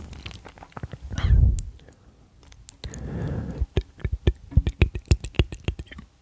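Close-microphone ASMR mouth and beard sounds. A short loud puff comes about a second in and a brief rustle around three seconds, then a fast run of sharp clicks and smacks fills the last two seconds.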